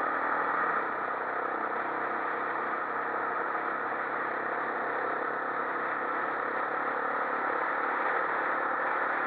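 Quad bike engine running at steady road speed, mixed with wind rushing over the onboard microphone.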